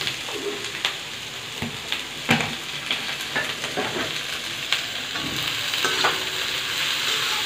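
Shredded vegetables sizzling in hot oil in a kadai while a steel spatula stirs them, with a few sharp scrapes and clinks of the spatula against the pan.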